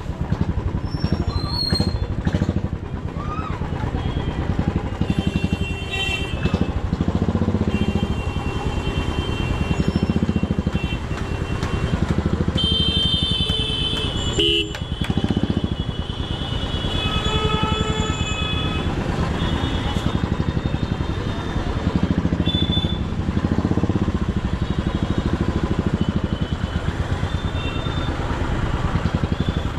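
Royal Enfield motorcycle engine running steadily under way in heavy traffic, while other vehicles' horns honk again and again, the longest and loudest blast about halfway through.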